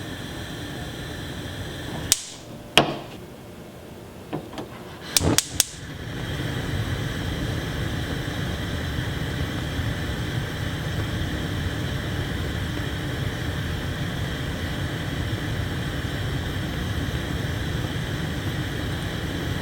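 Gas stove burner flame hissing steadily, then going out with a click about two seconds in. A few sharp igniter clicks follow, and the flame catches about six seconds in and burns with a steady, louder hiss.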